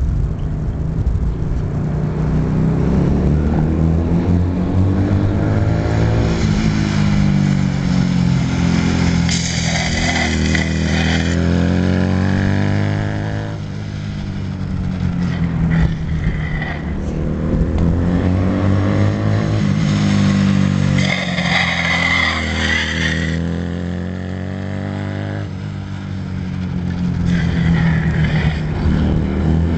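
Small motorcycles, among them a 1987 Honda Rebel 250, lapping in tight circles. The engines rev up and ease off each lap, so the pitch rises and falls about every seven seconds.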